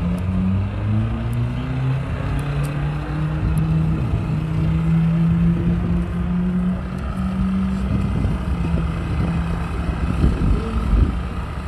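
Orange first-generation Chevrolet Camaro's engine running as the car rolls slowly past, a steady deep note that rises slightly in pitch partway through. About ten seconds in, a rougher, louder low rumble.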